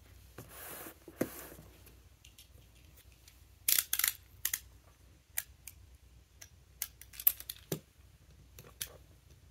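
Objects being handled in the lap: a soft rustle near the start, then scattered sharp clicks and taps, a short cluster of louder ones about four seconds in.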